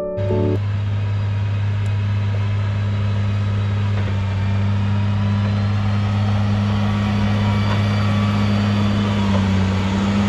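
A steady, unchanging engine-like drone with a strong low hum, like a vehicle running at constant speed. A few notes of piano music cut off in the first half-second.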